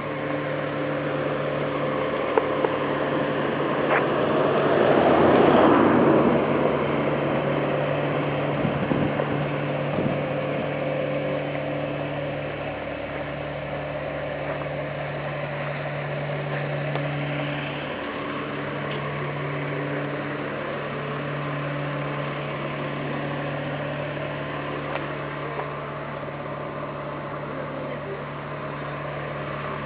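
A motor or engine running with a steady low hum, joined by a louder rushing noise that swells and fades about five seconds in.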